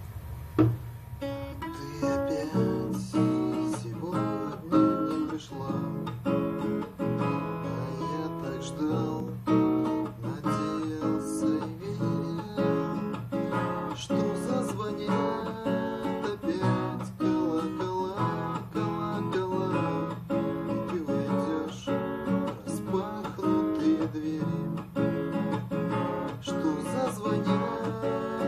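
Acoustic guitar played solo in imitation of ringing bells: a steady run of plucked notes that ring on over a low bass.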